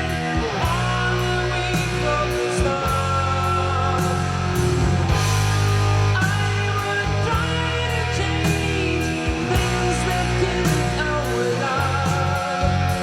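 Rock music with electric guitar lines over sustained bass notes, played back through a 6C33C-B push-pull triode tube power amplifier.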